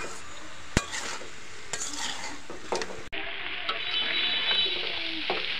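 Metal spatula stirring and scraping chicken and jackfruit curry in a metal wok over a steady frying sizzle, with a few sharp knocks of the spatula on the pan. The curry is being dry-fried after its water has cooked off. The sizzle gets brighter and louder about three seconds in.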